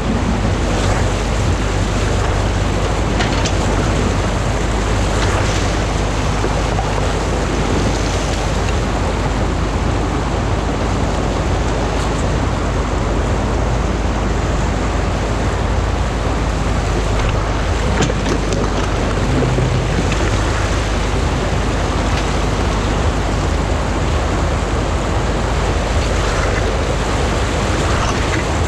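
Stream water rushing steadily over a small concrete weir and down its spillway, a loud, even rush. Underneath runs a low, steady hum from the excavator's engine idling, with a few faint scrapes of a rake on the concrete.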